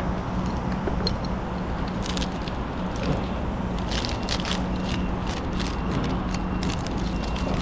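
A steady low engine hum under rough noise, with scattered light metallic clinks and rattles.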